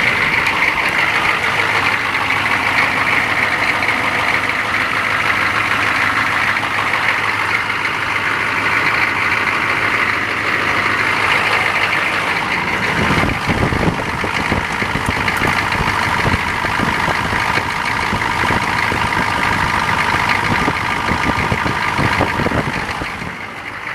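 K5 truck's engine idling steadily, with irregular knocks and rustles from the camera being handled from about halfway through.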